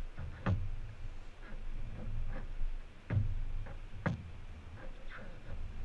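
A kayak under way with wing-paddle forward strokes, heard from the deck: a steady low rumble of water against the hull with a few sharp knocks and lighter ticks, the loudest about half a second in and twice more around three and four seconds in.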